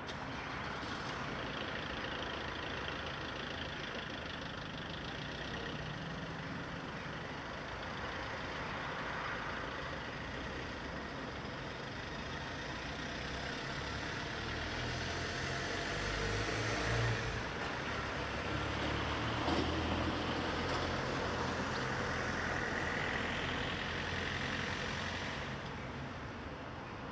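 Jet aircraft engines running: a steady noise that swells, with a deeper rumble through the middle, then eases near the end.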